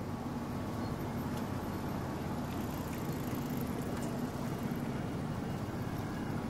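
Steady city street noise, mostly a low hum of road traffic with a faint steady drone.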